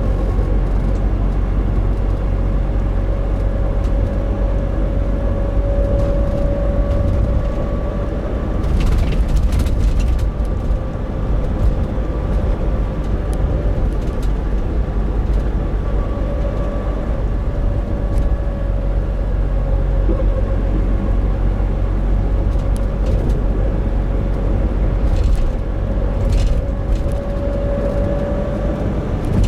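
Nissan NV350 Caravan van driving at steady throttle, with YD25DDTi four-cylinder diesel and road rumble under a steady droning 'kōn' hum that drifts slowly up and down in pitch. The hum comes at about 1000–1500 rpm on a steady throttle, and the owner suspects it may be differential noise.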